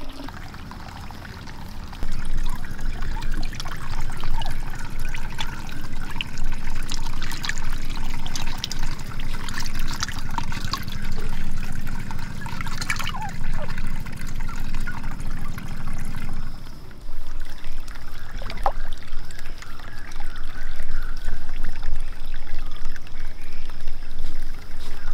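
Water pouring and splashing into a small pond, with many small splashes and drips. After about 16 seconds the sound eases to a lighter, steady trickle.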